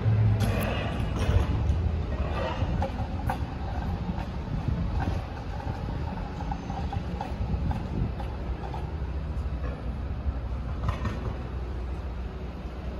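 Low, steady rumble of passing vehicles, loudest at the start and easing off after about five seconds.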